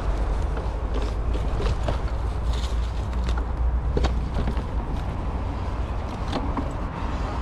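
Electric mountain bike ridden off-road: wind rumbling on the action camera's microphone over the crunch of tyres on dirt, with scattered clicks and knocks from the bike rattling over the rough ground.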